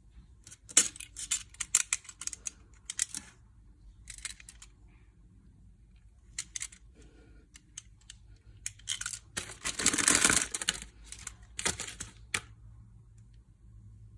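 Packaging being handled and opened: scattered clicks, taps and short rustles, with a longer rustle lasting about a second around ten seconds in.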